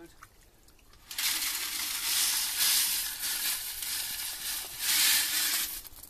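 Sand and gravel being tipped out of a galvanized metal bucket into a shallow stream bed with water in it. It makes a continuous pouring hiss that starts about a second in and lasts nearly five seconds, louder in the middle and again near the end.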